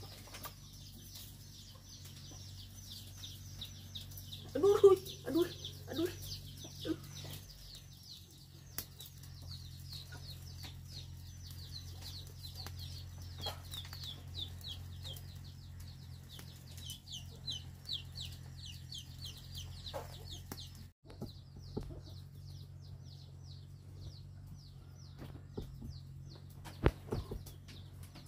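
Chickens: a brood of chicks peeping rapidly and continuously in short, falling high notes, with a hen clucking several times about five seconds in, over a steady low hum.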